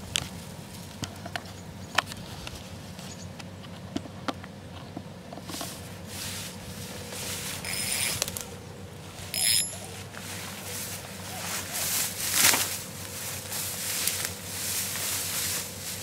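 Footsteps and rustling through tall grass and weeds, with scattered sharp clicks at first and swells of swishing from about five seconds on. There are a couple of brief high chirps near the middle.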